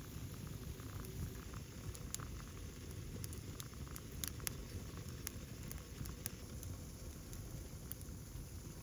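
Wood fire burning in a fire stand, a steady hiss of flames with sharp crackles and pops scattered irregularly through it.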